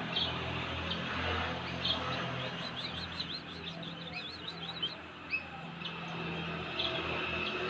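Javan munia chirping: short high chirps, then a quick run of them through the middle, over a steady low hum of background noise.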